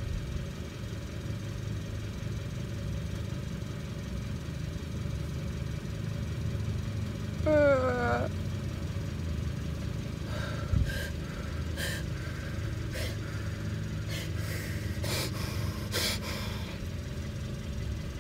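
Low steady rumble under a short, falling whimper about eight seconds in. In the second half there is crinkling, rustling and light taps of paper and plastic food packaging handled with gloved hands.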